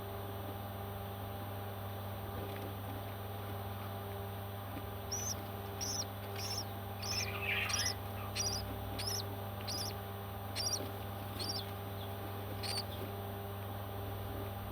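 Baby parrot giving a run of short, high-pitched chirps, about two a second, starting about a third of the way in and stopping near the end, with one brief raspy call among them. A steady hum runs underneath.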